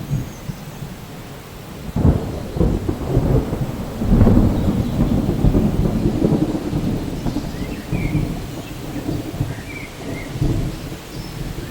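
Thunder over steady rain: a sudden clap about two seconds in, then low rolling rumbles that swell about four seconds in and keep surging.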